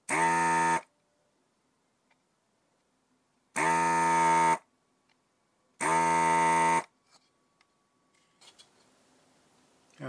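An electronic buzzer sounding three times, each buzz about a second long and at a steady pitch, with a few seconds between them.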